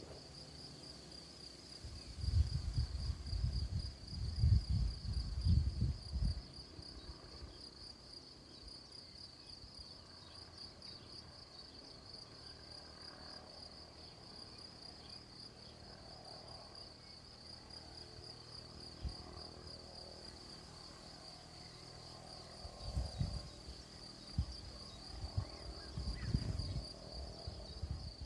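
Insects chirping in a steady, rapidly pulsing high trill. Low rumbles come in twice, about two seconds in and again near the end.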